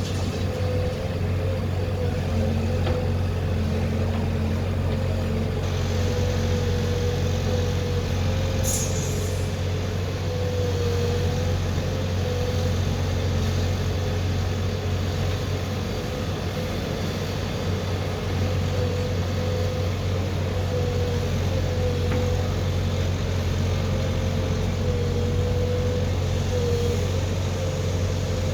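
JCB 3DX backhoe loader's diesel engine running steadily under work, with a wavering whine over the low drone. A short high hiss comes about nine seconds in.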